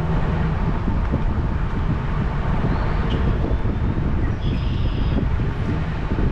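Vehicle driving slowly, with a steady low road and tyre rumble.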